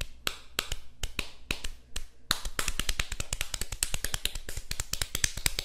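Cartoon paw-tapping sound effect: sharp percussive taps, a few spaced ones at first, then a fast, dense flurry from about two seconds in.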